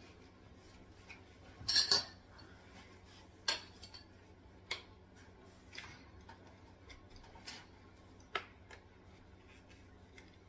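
Metal frame poles of a small four-tier greenhouse clinking and knocking as they are handled and pushed into plastic connectors: a cluster of sharp clicks about two seconds in, then single clicks roughly every second.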